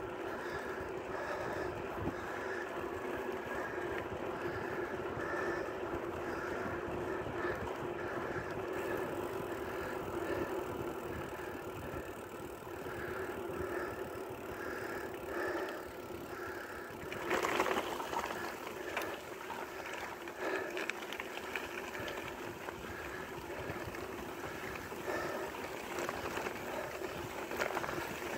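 Loaded touring bicycle rolling along a rural road, with steady tyre and frame noise as it passes from pavement onto gravel. It gets louder and rougher for a second or two about two-thirds of the way through.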